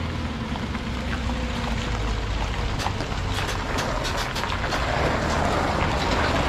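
A machine's engine running steadily, with scattered sharp clicks and cracks in the middle and a rise in overall noise about five seconds in.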